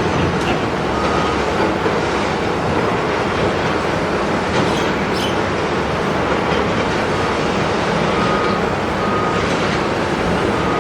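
Doosan excavator at demolition work: a steady mass of engine and crunching, clattering debris noise, with a few brief high metallic squeals near the end.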